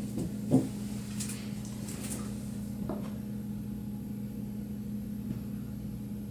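Steady low hum, with a small knock about half a second in and a few faint taps as a metal towel-ring mounting bracket is handled and held against drywall.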